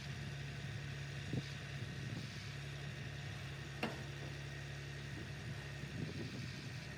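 An engine idling steadily with a low hum, with a single sharp click about four seconds in.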